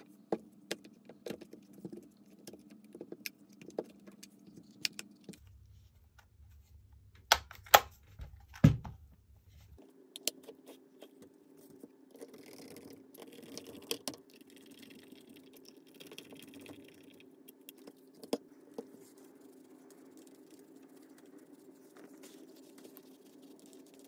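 Scattered clicks and knocks of a DSLR camera body and its nylon strap with buckles being handled, with a few louder sharp clicks near the middle, then some soft rustling, over a faint low steady hum.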